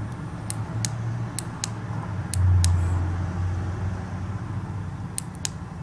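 Sharp switch clicks, mostly in pairs, from a small rechargeable keychain flashlight's push button as it is switched on and through its modes. Under them runs a low steady hum that grows louder for about a second near the middle.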